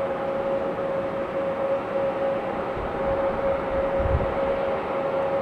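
Boeing 777-200ER's twin turbofan engines running, a steady whine over a low rumble with no change in pitch.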